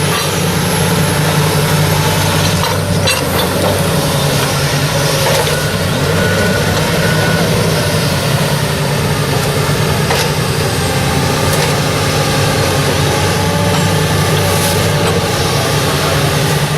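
Heavy work-machine engine running steadily at a low idle, with a few light knocks over it.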